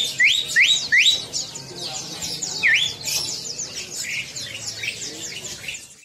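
Several small songbirds chirping and whistling together. Four rising whistles come one after another in the first second, and another comes near three seconds in, over a steady chatter of quick higher notes.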